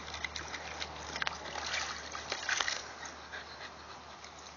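Dogs splashing in a shallow plastic kiddie pool: a Wheaten Terrier's feet and another dog's muzzle make a string of small splashes and sloshes. These are busiest between about one and three seconds in, then die down.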